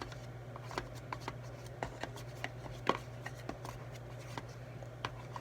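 Irregular light clicks and taps from slime-making materials and containers being handled on a table, over a steady low hum.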